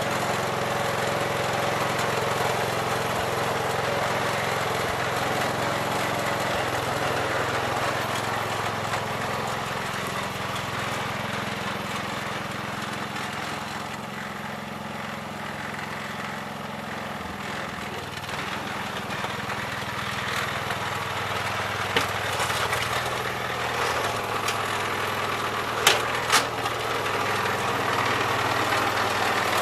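Gravely 408 tractor engine running steadily while plowing snow, easing off a little midway and picking up again, with a couple of sharp knocks near the end.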